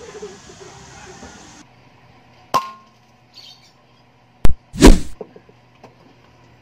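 An air rifle being fired while its scope is zeroed. About two and a half seconds in there is a metallic click with a brief ring; near the middle comes a sharp crack, followed half a second later by a louder, longer shot.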